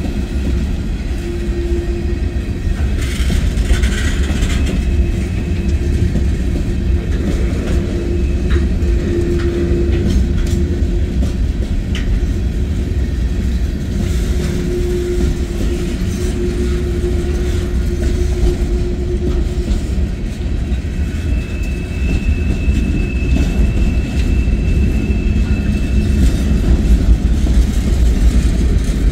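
Freight cars of a manifest train rolling past close by: a steady rumble and clatter of steel wheels on the rails. Thin whining tones come and go over it, one higher-pitched for several seconds past the middle.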